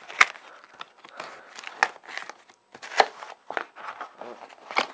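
A cardboard shipping box being handled and pried open by hand: crinkling and scraping of the cardboard, broken by a few sharp cracks or knocks.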